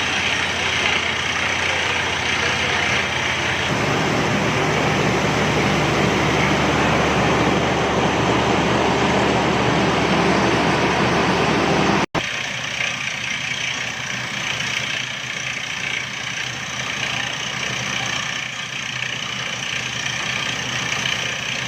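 FYX200 water-well drilling rig's 55 kW engine running steadily. About halfway through the sound cuts out for an instant, and afterwards it is quieter with less low rumble.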